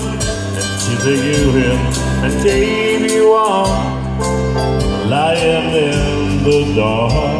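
Live country-western music played loud through PA speakers: a man singing over keyboard accompaniment with a steady bass and beat.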